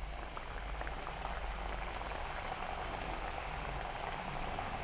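Kadboli dough rings deep-frying in hot oil: a steady sizzle with fine scattered crackles, the bubbling of moisture cooking out of the dough.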